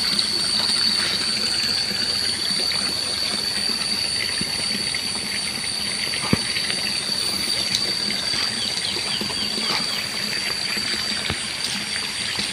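Outdoor ambience beside fish ponds: a steady high-pitched insect drone over an even hiss of running, trickling water, with a single sharp tap about six seconds in.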